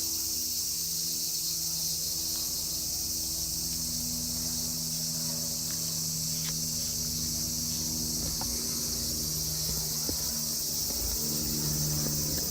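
Cicadas singing in a loud, unbroken high-pitched drone, with a lower steady hum beneath it.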